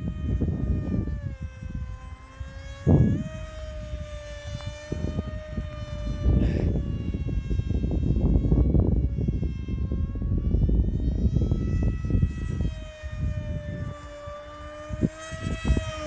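Eachine Micro Skyhunter RC plane in flight: its electric motor and 6045 propeller give a steady high whine that drifts down and back up in pitch. Gusty wind rumbles on the microphone underneath.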